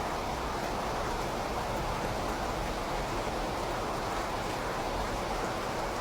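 Steady rain, an even hiss of falling drops with no change in level.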